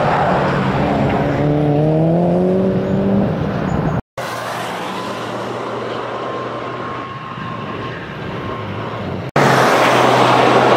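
Toyota GR Yaris's turbocharged 1.6-litre three-cylinder engine driven hard on a circuit, rising in pitch as it revs up about a second in. The sound breaks off briefly twice, and after the first break the car is quieter before coming back loud.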